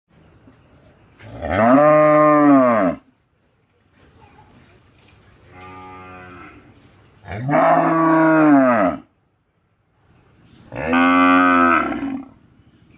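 Cattle mooing: four drawn-out moos, each rising and then falling in pitch, three loud and one quieter in the middle.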